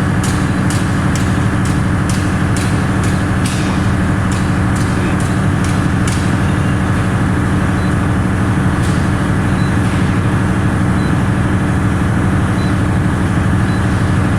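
Large 2000 kW diesel generator set running steadily under commissioning, a loud constant drone with a strong low hum. A series of sharp clicks sounds over roughly the first half.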